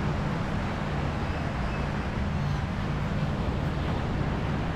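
Steady low rumble of wind on the microphone mixed with the wash of surf.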